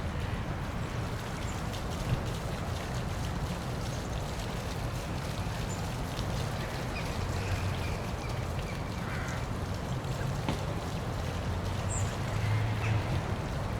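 Steady rush of a city-park waterfall pouring, with a few faint, short bird calls over it.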